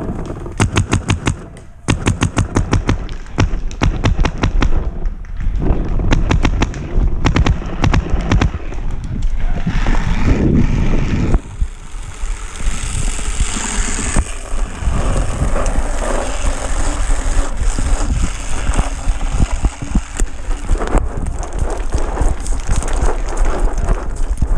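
Paintball marker firing long strings of rapid shots, many pops a second, for the first several seconds. Then irregular footfalls and rustling as the player runs over the dry forest floor.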